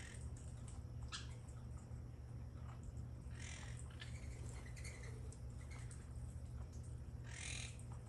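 Wild monk and nanday parakeets calling: two harsh, drawn-out squawks, about three and a half and seven and a half seconds in, with short chirps between them, over a low steady rumble.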